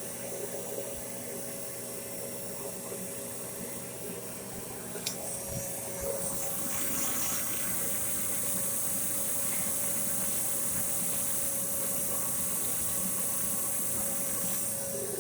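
GE dryer test-running after a no-heat repair: the motor and blower hum steadily with a rush of air, to check whether the heating element comes on. There is a click about five seconds in, and the air rush grows louder from about seven seconds.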